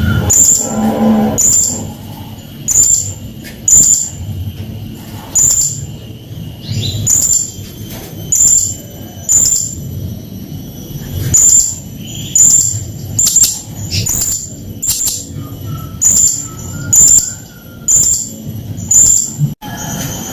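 Blue-crowned hanging parrot (serindit) calling: short, shrill, very high-pitched chirps repeated a little more than once a second.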